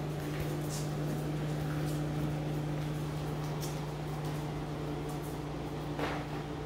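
Steady low background hum, with a few faint clicks and scrapes from puppies playing on a tile floor, the clearest near the end.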